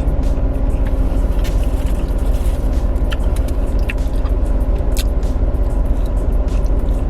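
Steady low hum of a car idling, heard from inside the cabin, with scattered sharp clicks and smacks of eating and chewing close to the microphone.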